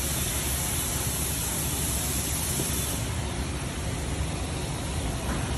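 Steady rushing noise with a low rumble from a turning car wheel beside a damaged red brake caliper cover.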